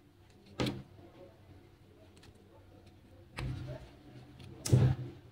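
Quiet handling sounds of crocheting with a metal hook in yarn: a sharp click about half a second in, then two short, louder noises, one at about three and a half seconds and one just before five.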